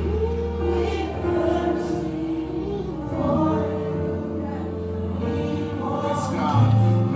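Gospel worship music: a choir singing sustained, gliding vocal lines over a steady bass accompaniment.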